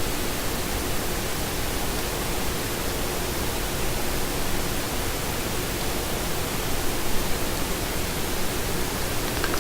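Small fischertechnik electric motors running steadily, a faint hum under an even hiss.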